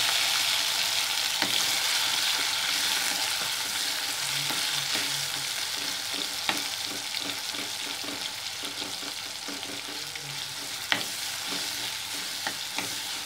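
Chopped tomatoes sizzling in hot coconut oil in a clay pot as they are stirred with a ladle. The sizzle slowly dies down, with a few sharp clicks along the way.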